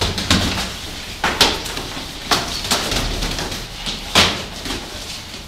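Gloved punches and kicks landing on padded sparring gear in full-contact sparring: about five sharp, irregular thuds and slaps, the loudest about a second and a half in and again about four seconds in.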